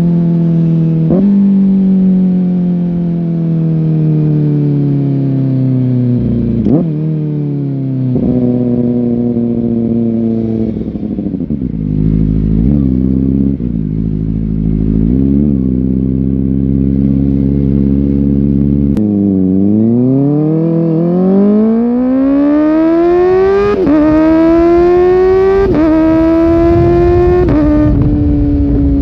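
Kawasaki ZX-4R's 399 cc inline-four engine, heard from on the bike: it winds down for several seconds with a couple of short blips, runs low with a few brief throttle blips, then accelerates hard, the pitch climbing and dropping sharply at each of several upshifts near the end.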